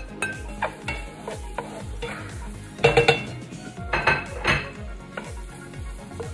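Garlic and green onions sizzling in hot oil in a stainless steel pot while a spatula stirs and scrapes against the pot, with the loudest clatters about three seconds and four and a half seconds in.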